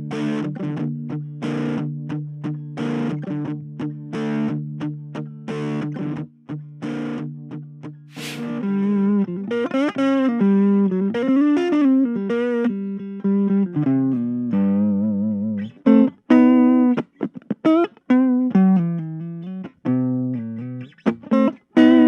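Donner DTL100 electric guitar played through a 5-watt portable mini amplifier: strummed chords in an even rhythm for about the first eight seconds, then single-note lead lines with bends and vibrato.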